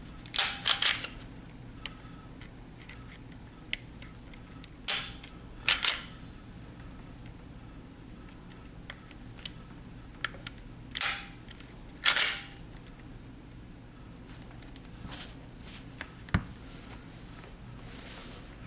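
Sharp metallic clicks and snaps from a Glock pistol being handled, reassembled and function-tested. A quick cluster comes in the first second, then single clicks and short rasps spaced several seconds apart.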